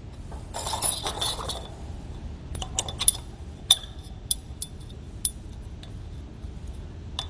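A metal leg extension sliding down a work-platform leg, rattling and scraping for about a second. This is followed by a string of sharp metal clinks and clicks as it is hooked into place at the bottom of the leg.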